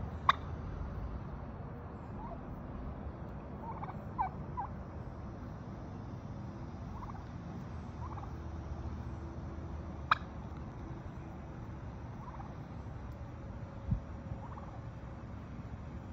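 Male wild turkey giving short, scattered calls. Two sharp clicks, one just after the start and one about ten seconds in, and a low thump near the end stand out above a steady low rumble.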